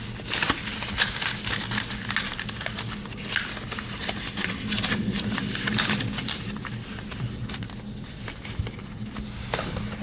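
Paper and packaging being handled, giving irregular rustles and crinkles that are thicker in the first half and thin out toward the end, over a steady low hum.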